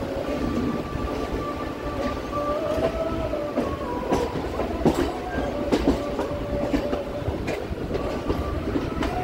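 MMTS suburban electric train running between stations, heard from inside the coach: a steady rumble with wheels clicking over rail joints every second or two, and a high steady whine over the top.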